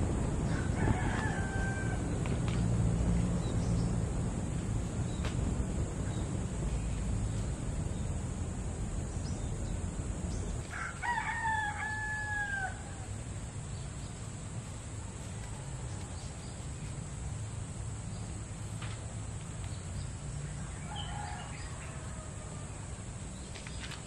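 A rooster crowing three times, the clearest crow about eleven seconds in with a long falling tail, the others fainter. A few light clicks sound between the crows.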